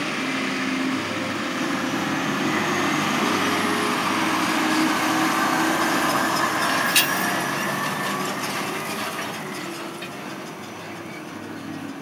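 John Deere four-wheel-drive tractor running under load as it pulls a grain cart across a harvested field, a steady engine and machinery noise that swells in the middle and eases off near the end. A single sharp click sounds about seven seconds in.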